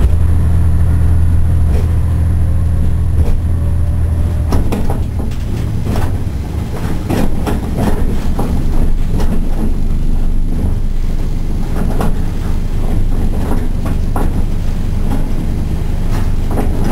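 Kishu Railway diesel railcar heard from inside the cab. A steady low engine drone fades out after about four and a half seconds. After that the car rolls on with a running rumble, and the wheels click over rail joints about once a second.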